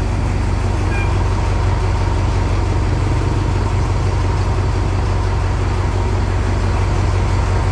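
Alsthom diesel-electric locomotives idling at a standstill, a steady low engine drone with no change in speed.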